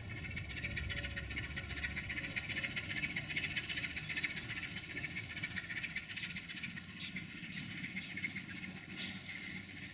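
LDE2100 (060-DA) diesel-electric locomotive with its Sulzer V12 engine running at low power as it creeps along on its own during shunting. A dense, high chirring chorus sounds over it, and a few brief high squeaks come near the end.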